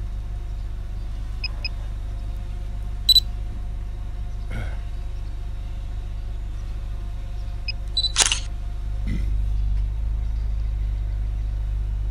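Camera-shutter sound from the drone control app as a still photo is taken: a short click about 3 seconds in and a louder shutter burst about 8 seconds in, with a few faint beeps. A steady low hum runs underneath.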